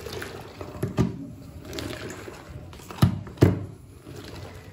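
Water sloshing as a wet mop is worked and spun in its mop bucket, with three sharp knocks of the mop against the bucket, one about a second in and two close together near three seconds.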